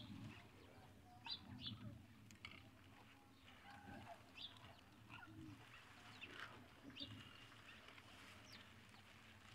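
Grey francolins giving a scattering of faint, short chirps.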